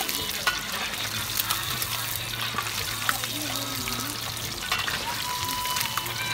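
Fish pieces deep-frying in hot oil in a black iron wok: a steady sizzling hiss, with several sharp clicks and pops while a perforated metal skimmer stirs and turns them.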